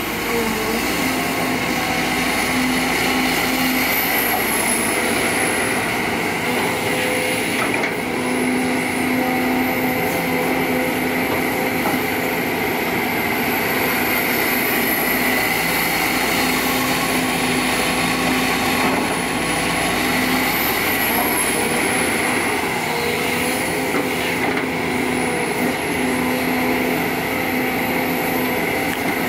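Sumitomo SH210 hydraulic excavator's diesel engine running steadily while working, with a thin high whine that rises and falls.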